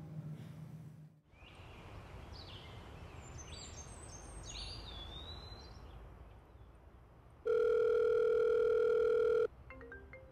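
Telephone ringback tone heard as a mobile call rings out: one steady beep about two seconds long, cutting off sharply. Before it there is a soft steady hiss with a few high chirps, and soft mallet notes of background music begin at the very end.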